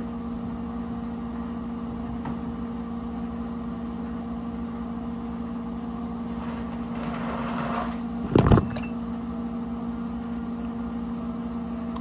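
A steady low hum, with a soft rustle and then a single sharp thump about eight and a half seconds in.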